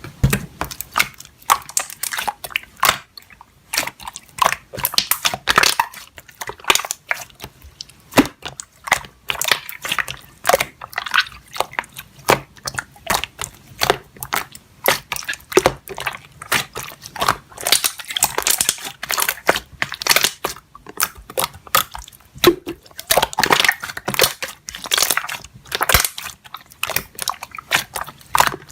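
Slime being squished and worked by hand: a continuous, irregular run of sticky clicks, pops and squelches.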